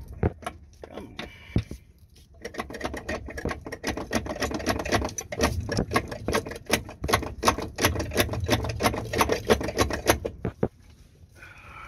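Dense, uneven metal clicking and rattling, many clicks a second, from a Honda CR-V shifter cable being worked out through its hole in the floor pan. It starts about two seconds in and stops abruptly near the end.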